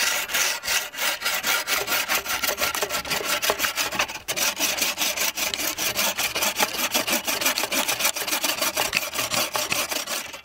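Hand saw cutting through a wooden log, fast, steady back-and-forth strokes with a brief break about four seconds in.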